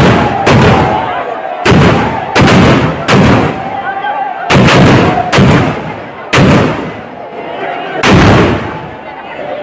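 Firecrackers going off: about ten loud, irregularly spaced bangs, each with a long echoing tail, over the din of a large crowd.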